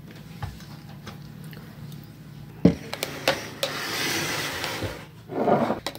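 A spoon stirring freshly blended honeydew melon juice in a blender jar: a few sharp clicks and knocks, then a swishing, splashy stir, with a louder knock or clatter near the end.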